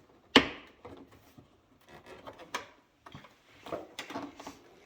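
Plastic door-trim parts being worked loose with trim tools. A sharp knock about half a second in, then a few light clicks and a stretch of rubbing and scraping near the end.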